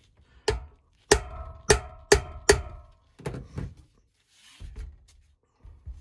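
A hammer striking a chisel set in a notch of a BMX screw-on freewheel: five sharp metal blows within about two seconds, each leaving a short ring, then a few softer knocks. The blows tap the freewheel anti-clockwise to unscrew it from the hub.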